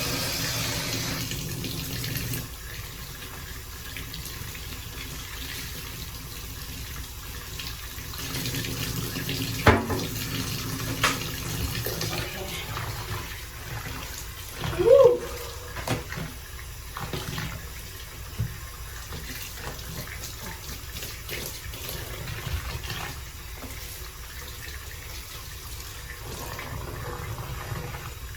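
Tap water running into a sink while plastic cup holders are washed and rinsed. A few sharp knocks and one short squeak come through midway.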